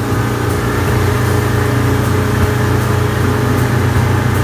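Mercury outboard motor running steadily at speed, under load as it tows a rider, with the rush of the boat's churning wake.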